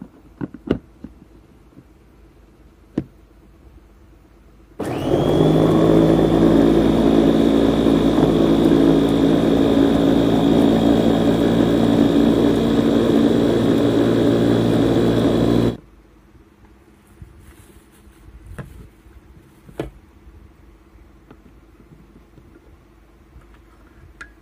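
Electric food chopper's motor spinning up quickly about five seconds in and running steadily for about eleven seconds, its S-blade grinding sautéed tomatoes, garlic and shallots into a smooth sambal paste, then stopping abruptly. Light clicks and knocks from handling the bowl and lid come before and after.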